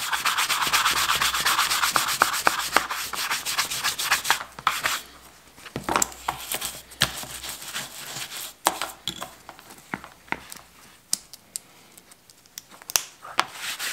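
Bristle boot shine brush scrubbing mink oil into a leather knife sheath, working it into the stitching holes: fast steady brushing for about four seconds, then it stops. After that come scattered light clicks and taps as the sheath is handled.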